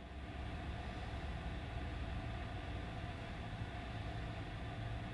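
Steady low rumble of a running engine or motor, with a faint hum above it; it swells slightly over the first second and then holds steady.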